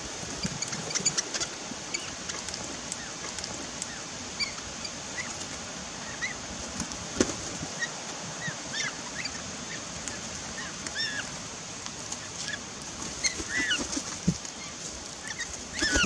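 A flock of parrots, galahs and crimson rosellas, giving short scattered chirping calls at a seed feeder, with a few sharp clicks over a steady high hiss.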